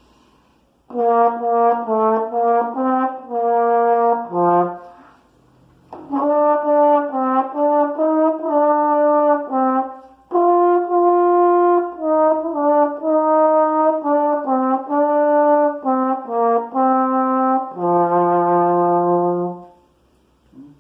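Besson 639 trombone played solo: a melody of short notes in three phrases, the last ending on a long held low note. Its tone is very bright and strident.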